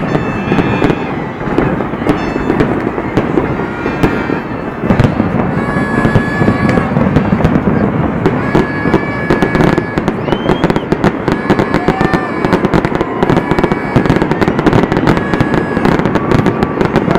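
Aerial fireworks display: a dense, continuous barrage of bangs and crackling over a low rumble, with short high whistles scattered throughout.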